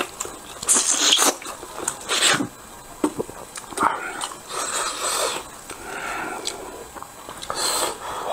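Close-miked eating sounds: a man biting, sucking and chewing steamed pork off the bone, with wet smacking mouth noises that come in irregular bursts.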